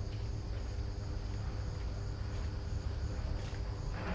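Crickets chirping in an even pulse, about two chirps a second, over a steady low rumble.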